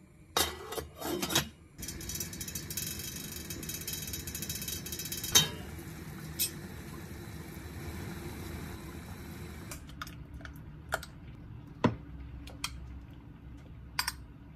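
Kitchen handling sounds: a quick run of clatter near the start, then a steady appliance hum with single clicks and knocks of utensils or dishes every few seconds.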